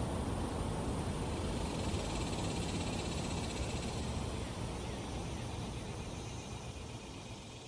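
Steady outdoor background noise, a low rumble with hiss over it, fading out near the end.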